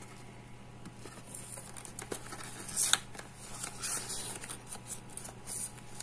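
Hands picking at and peeling open the seal of a clear plastic blister pack: light scratchy rustling and crinkling of plastic and paper, with one sharper crackle about three seconds in.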